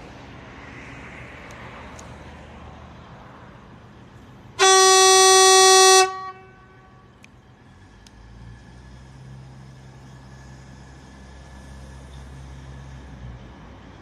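A regional passenger train's horn sounding one long blast of about a second and a half, about five seconds in. Afterwards, the train's low, steady running as it approaches the crossing.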